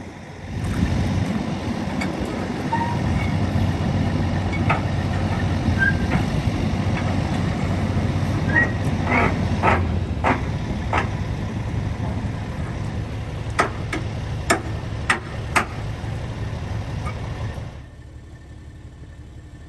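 A road vehicle on the move: a steady low engine and road rumble, with a scatter of short sharp clicks and chirps in the middle. It starts abruptly and cuts off near the end.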